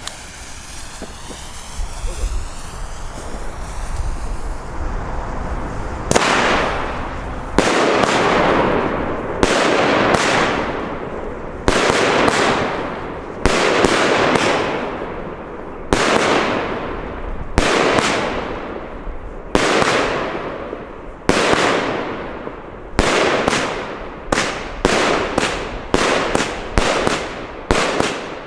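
Funke Swoboda firework cake burning its fuse with a steady hiss for about six seconds, then firing shot after shot, each a sharp bang followed by a long fading crackle of the burst. The shots come about every two seconds at first and quicken to about two a second near the end.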